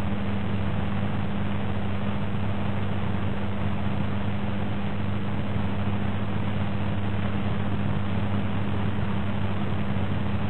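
A steady low hum with an even hiss, unchanging throughout, with no crowd noise, music or other sound events: the background noise of an old TV recording while the stadium crowd stands silent.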